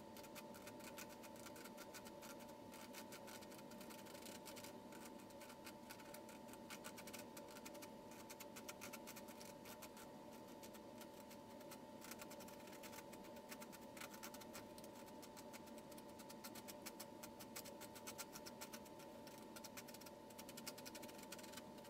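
Faint, irregular scratching of a palette knife scraping oil paint off a canvas, over a steady background hum.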